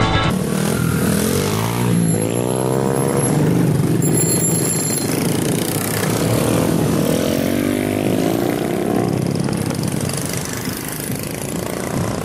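Engines of small motorcycles running as a group of riders passes, one revving up and down about two seconds in and again around seven to nine seconds in.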